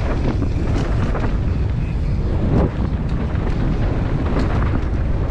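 Wind buffeting a helmet-mounted camera's microphone as a downhill mountain bike descends fast over a dirt trail, with a constant low rumble from the tyres on loose ground and scattered clicks and knocks as the bike rattles over bumps. A heavier thump comes about two and a half seconds in.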